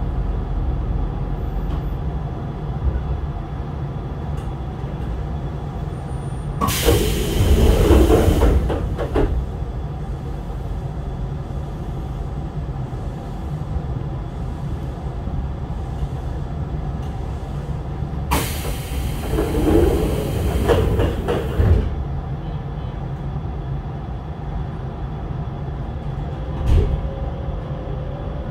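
Hokuso 7300-series commuter train standing at a station: its sliding passenger doors open about seven seconds in and close about eleven seconds later. Each is a loud burst of noise lasting two to three seconds, over the steady low hum of the stopped car. A single knock sounds near the end.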